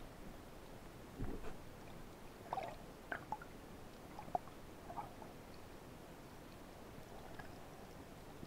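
Underwater ambience picked up through a camera housing: a faint steady hiss with a soft low knock a little over a second in, then a few short scattered clicks and pops over the next few seconds.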